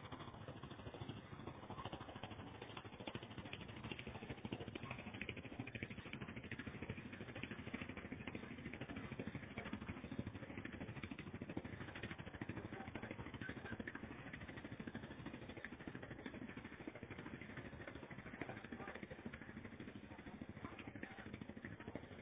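Kato excavator's diesel engine running steadily as the machine crawls onto a moored boat.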